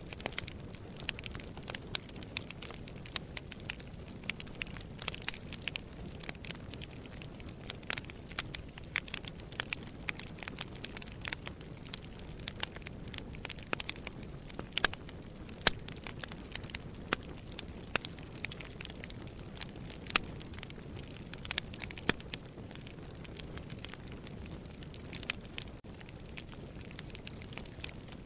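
Wood fire burning in a fireplace: a steady low rumble of the flames with frequent sharp, irregular crackles and pops of the logs.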